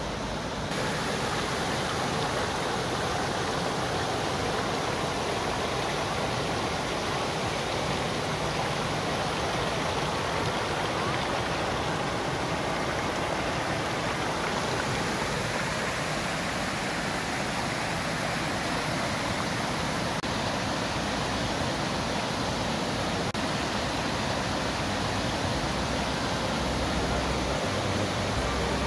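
River water rushing over a low weir and through white-water rapids, a steady, unbroken rush of water.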